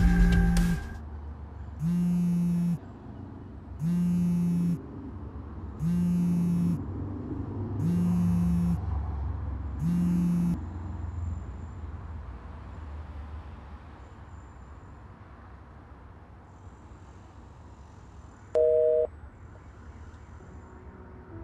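A mobile phone sounding a low buzzing tone six times, each buzz under a second long and two seconds apart. Near the end comes one short, higher beep.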